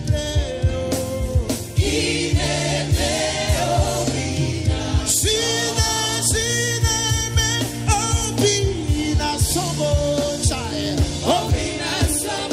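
Live gospel worship music: singing voices over a band with a steady drum beat.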